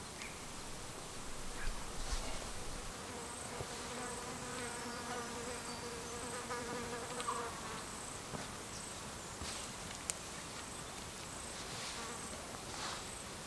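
A flying insect buzzing close by for a few seconds, starting a few seconds in, its pitch wavering as it moves about. Under it, faint rustling from hands kneading damper dough in flour.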